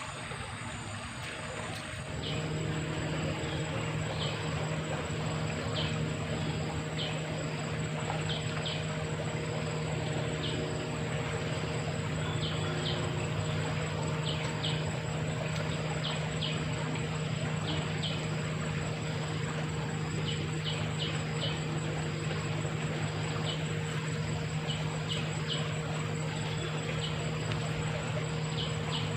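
Outdoor ambience: a steady low hum begins about two seconds in, with many short high chirps scattered irregularly through it.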